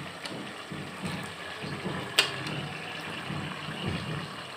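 A pot of chicken and freshly added chopped tomatoes frying in oil on the stove: a steady low rumble and hiss, with one sharp click about two seconds in.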